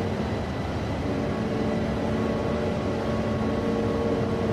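Steady drone of a vessel's engine over rushing sea water, with a few held low tones running through it.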